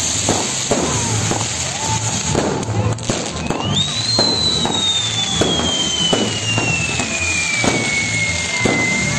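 Firework castle and pyrotechnic Judas burning: a steady fizzing hiss of spark fountains with repeated firecracker bangs. A whistling firework starts about three and a half seconds in; its whistle rises sharply, then slowly falls in pitch for several seconds.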